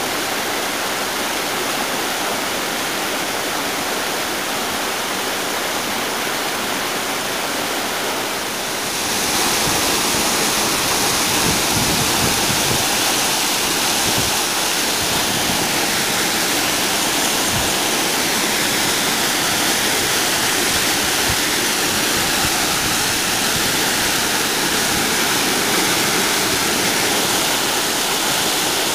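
Steady rush of a rocky woodland stream, which about nine seconds in turns louder and brighter as a waterfall plunging through a narrow rocky gorge into a pool.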